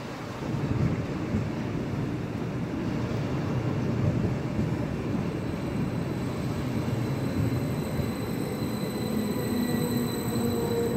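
A eurobahn Stadler FLIRT electric multiple unit rolls slowly past alongside a station platform, its wheels and running gear rumbling on the track. A thin electric whine from the drive sits over the rumble and grows stronger in the last few seconds.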